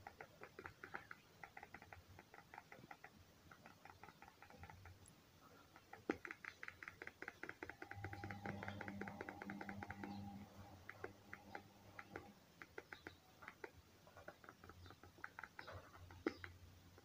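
Faint, rapid clicking in runs of several clicks a second, with a low hum for a few seconds in the middle.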